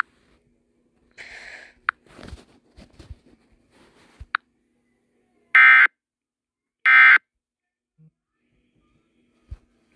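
Two short, loud electronic beeps of EAS-style alert tones, about a second and a half apart, starting a little past halfway. Before them come fainter scattered clicks and noise.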